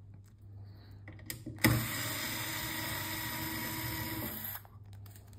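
Small electric screwdriver starting with a click and running steadily for about three seconds, undoing a casing screw on a car stereo head unit.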